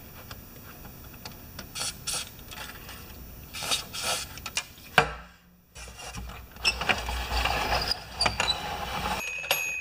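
Plastic gear and ratchet mechanism of a vintage Fisher-Price toy parking garage clicking and rattling as it is worked. The mechanism is being lubricated with spray lithium grease because it had got sticky. Near the end the garage's little bell rings with a ding.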